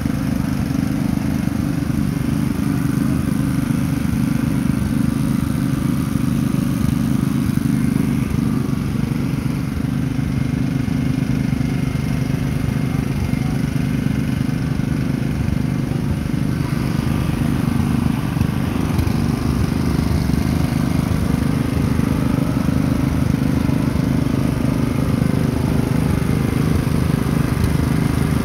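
1998 Yamaha R6 race bike's inline-four engine idling steadily through an aftermarket PowerTech exhaust can.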